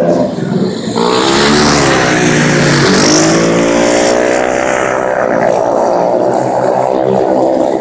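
Engines of 250-class flat-track racing motorcycles running hard as they pass close by. The pitch climbs about a second in, dips briefly near three seconds, then holds high.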